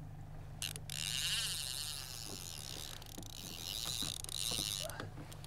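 Line-counter trolling reel whirring as its spool turns and line pays out, starting just under a second in and cutting off abruptly about four seconds later. Under it runs the steady low drone of the boat's outboard motor at trolling speed, with a few light knocks in the second half.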